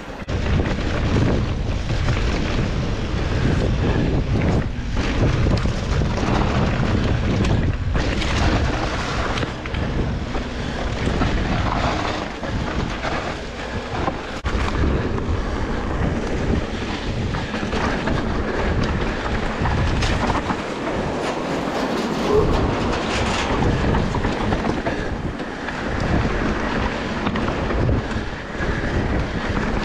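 Electric mountain bike rolling fast down a dirt and leaf-covered trail, heard from a camera mounted on the bike or rider: a rough, uneven rumble of tyres and rattling bike parts over trail bumps, with wind buffeting the microphone.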